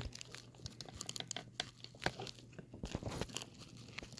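Lock-picking tools and a padlock being handled: a busy, irregular run of small clicks, taps and scrapes.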